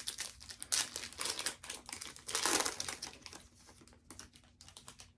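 Plastic trading-card pack wrapper crinkling and crackling as it is handled and torn open, with a louder burst of crinkling about halfway through.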